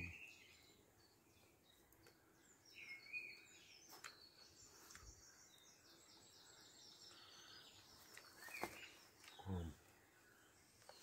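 Near silence, with small birds chirping faintly in the surrounding woodland and a few soft clicks. A brief low hum comes near the end.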